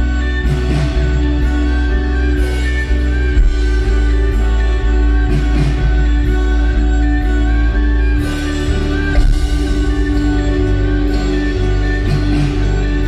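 Live post-rock band playing loud: a heavy, sustained bass and distorted guitar wall under a long held melody note, with cymbal crashes every second or two.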